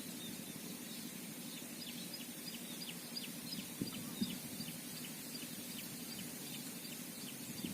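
A small bird calling in a long run of short, high, downward chirps, about four a second, over a steady low hum. Two soft knocks come near the middle.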